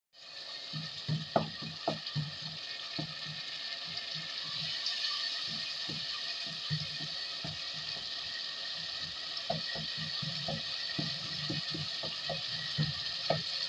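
Onion-tomato masala sizzling in hot oil in a pan while a wooden spatula stirs it, with irregular knocks and scrapes of the spatula against the pan. The masala is being fried down until the oil separates.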